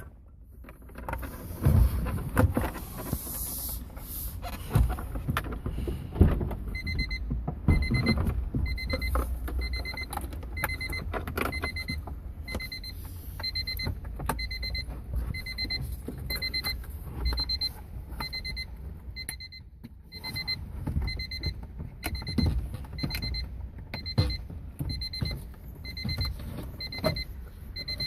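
Car warning chime beeping about once a second, starting about seven seconds in, over irregular knocks and rattles from hands working in the car.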